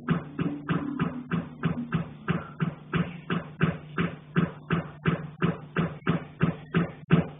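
Rapid, steady knocking on a cast-iron pipe, about four knocks a second, each knock ringing briefly over a steady low hum.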